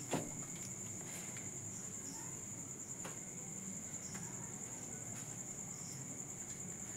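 Crickets chirping in a steady, continuous high trill, with a few faint clicks.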